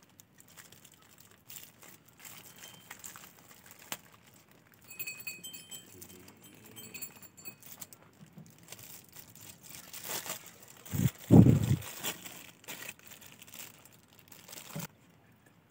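Aluminium foil crinkling and rustling as fingers pick open a foil-wrapped bundle, in many small crackles. A louder low thump comes about two-thirds of the way through.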